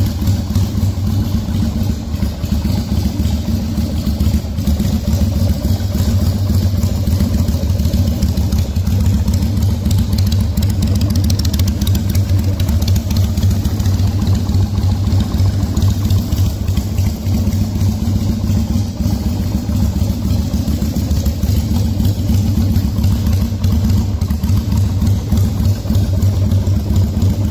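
Custom Patagonian 250 bobber's 250 cc V-twin engine idling steadily.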